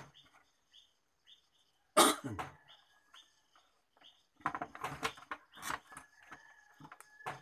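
Plastic TV back cover and casing parts being handled and fitted into place: knocks and clatters, the loudest about two seconds in and a busy run of them later. Small birds chirp faintly, about twice a second.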